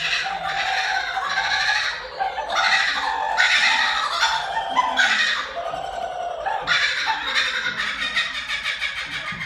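Laughing kookaburra giving its laughing call on cue: a long run of rapid, loud cackling notes that builds to a peak in the middle and tapers off toward the end.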